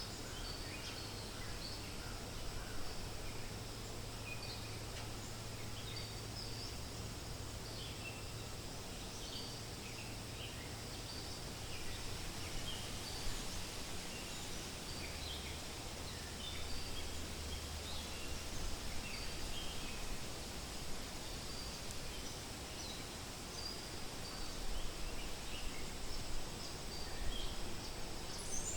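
Birds chirping and calling in many short, high notes scattered throughout, over a steady hiss of wind rustling the leaves.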